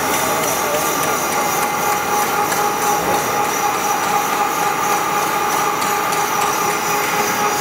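High-speed CNC roll lathe turning a milling roll: a steady mechanical drone of the spindle drive and cut, with a few thin, steady high whines over it.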